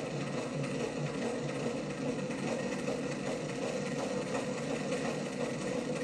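Live rock band playing loud, heard as a dense, muddy, distorted wash through a camcorder microphone.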